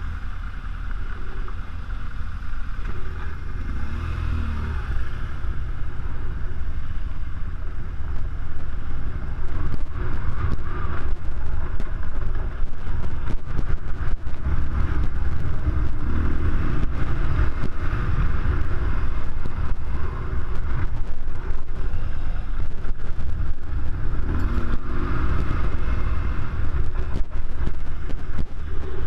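BMW R1200GS Adventure's air/oil-cooled flat-twin boxer engine running under load on loose gravel, its engine speed rising and falling as the rider works the throttle. Wind and bumping noise on the bike-mounted camera run through it.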